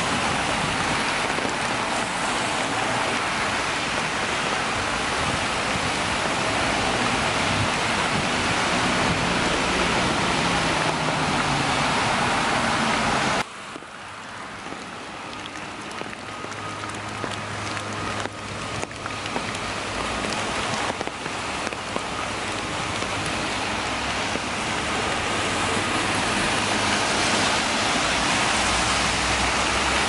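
Steady rain falling on wet fallen leaves and pavement, with car traffic on the rain-soaked road. About 13 seconds in the rain noise drops suddenly to a lighter patter with separate drips and a low hum, then gradually builds back up.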